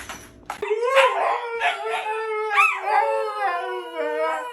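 A husky howling and 'talking' in one long, wavering vocal that starts about half a second in, an excited answer to being offered a walk.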